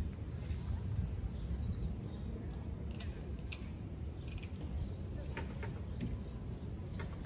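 Outdoor ambience: small birds chirping, with a short high trill near the start, over a steady low rumble. A few light clicks sound through it.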